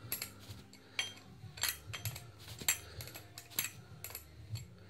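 Sharp metallic clinks of a spanner working the small bolts on a removed gear-type oil pump from a Peugeot Boxer, about two uneven clicks a second as the spanner is worked and repositioned on the bolt heads.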